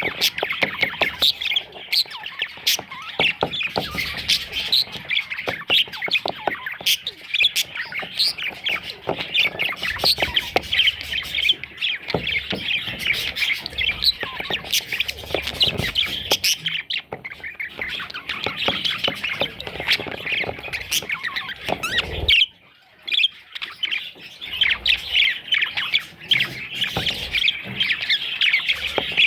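A flock of budgerigars chattering, a dense, continuous mix of chirps, warbles and squawks, with a brief pause about three-quarters of the way through.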